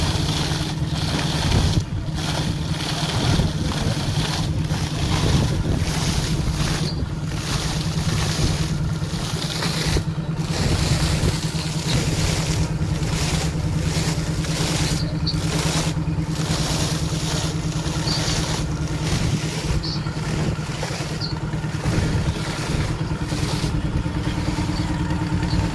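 Air compressor's engine running steadily under load while it blows air down a borewell to flush it out. A low, even engine hum sits under a loud rushing hiss of air and water that wavers and briefly drops out now and then.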